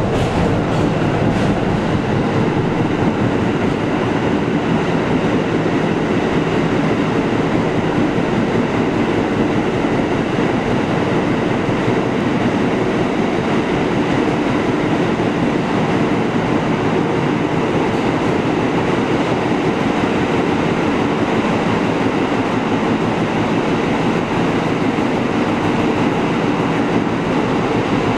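A New York City Subway train running through a tunnel, heard from inside the front car: a steady rumble of wheels on the rails with the running gear underneath.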